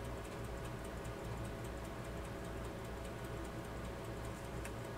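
Faint, steady ticking of a clockwork escapement, several quick, even ticks a second, over a low steady hum.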